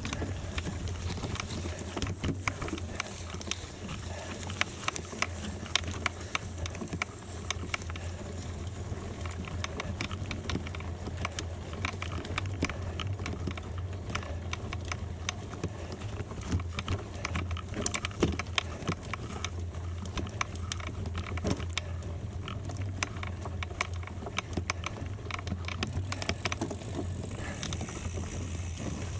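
Bicycle tyres rolling over a gravel road: a steady low rumble with frequent, irregular ticks and crackles of loose stones.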